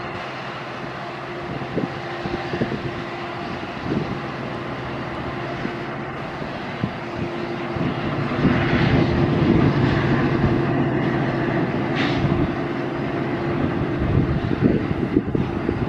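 Diesel locomotive engine running with a steady pitched drone, growing louder about seven seconds in.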